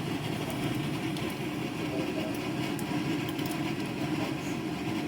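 A steady low hum of a running motor, with faint scattered light ticks over it.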